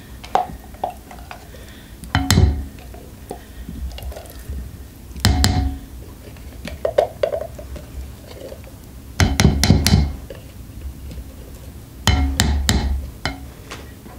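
Spatula knocking and scraping inside a tin can as canned pumpkin is emptied into a mixing bowl: four short bursts of clattering knocks and clinks, about three seconds apart.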